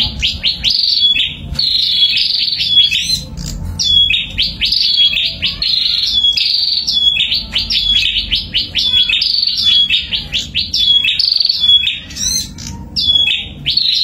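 A pair of caged prinias (prenjak) singing: rapid, high-pitched chattering bouts about a second long, each ending in a short clear note and repeating about every second and a half.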